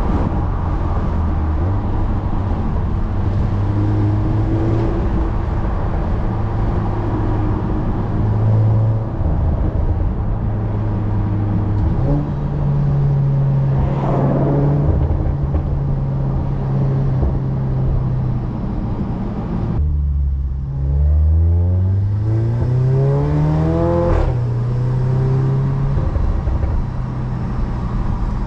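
Catless Audi S3's turbocharged four-cylinder heard from inside the cabin, running at a steady drone that changes pitch a few times. About twenty seconds in the note drops, then rises steadily for about four seconds under acceleration before settling back to a steady run.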